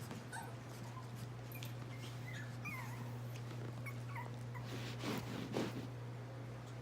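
Chihuahua puppies whimpering: scattered short, high squeaks over a steady low hum, with a burst of rustling about five seconds in.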